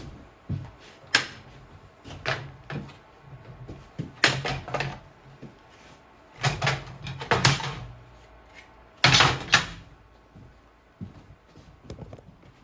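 Irregular knocks and clunks of workpieces being handled and set down on a workbench, in several short clusters with pauses between.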